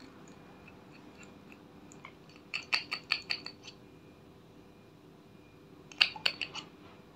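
Small glass lip-tint bottle and its screw cap handled, giving sharp little clicks and taps: a quick run of about eight as the cap is twisted off, and another run of about five near the end as the brush is drawn out.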